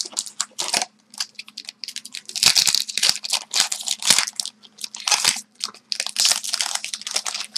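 Foil wrapper of a 2012-13 Upper Deck Artifacts hockey card pack being torn open and crinkled by hand, a run of irregular crackles and rips.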